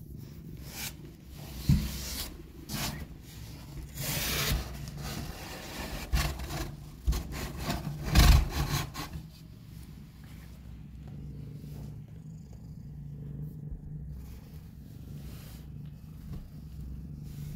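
Mother cat purring steadily while nursing her newborn kittens, with short bursts of rustling and rubbing in the first half, the loudest about eight seconds in.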